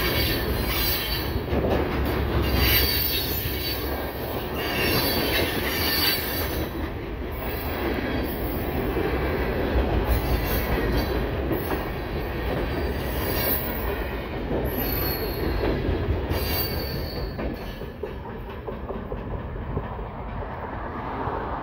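Freight train cars rolling past at speed: a steady rumble of steel wheels on rail with repeated high-pitched wheel squeal. The sound eases off near the end as the last car goes by.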